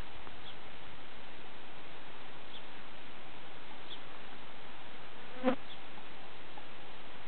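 Steady background hiss, broken once about five and a half seconds in by a single sharp knock with a short ringing tone: a hollow diabolo striking its hand stick.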